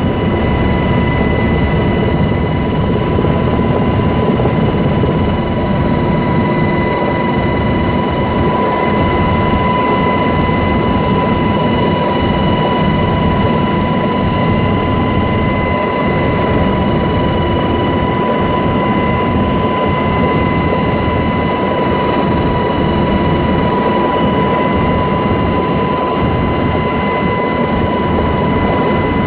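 Helicopter in low flight: steady engine and rotor noise, with a constant high whine running through it.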